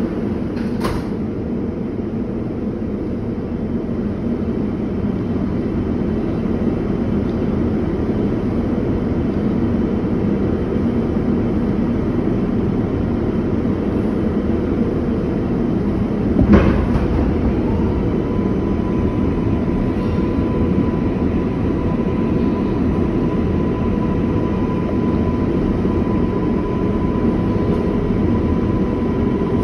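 R142A subway train running through the line, a steady rumble from the wheels and running gear that grows a little louder over the first few seconds. About sixteen seconds in there is a single sharp bang, and soon after a steady high whine comes in and holds.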